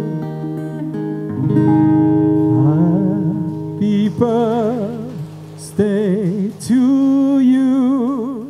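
Male singer's closing wordless vocal notes, held with wide vibrato, over an acoustic-guitar backing track, the music dropping away at the very end.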